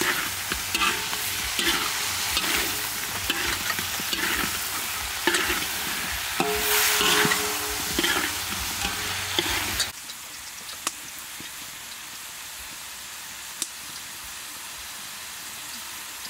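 Metal spatula scraping and turning whole shell-on prawns in a wok of sizzling garlic oil, in quick repeated strokes. About ten seconds in the stirring stops abruptly and only a quieter steady sizzle remains, with a couple of faint ticks.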